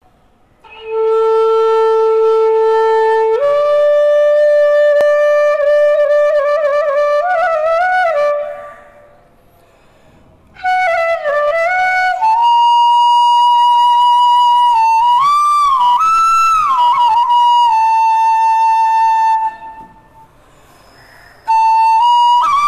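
Bansuri (side-blown bamboo flute) played solo: long held notes with slides and wavering ornaments, in three phrases broken by two short pauses, the melody climbing higher after the first pause.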